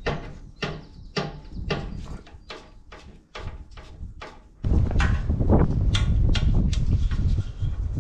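Repeated sharp clicks, roughly two a second, from a tool tightening a hose clamp on a Ferguson TEF20's radiator hose. About halfway through, a loud, steady low rumble sets in suddenly and takes over.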